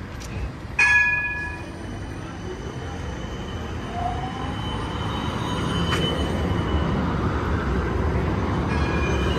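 Combino tram approaching on street track and passing close by: a low rolling rumble of wheels on rail that builds as it nears, with a thin steady wheel squeal and a short rising whine a few seconds in. A bell rings once, sharply, about a second in.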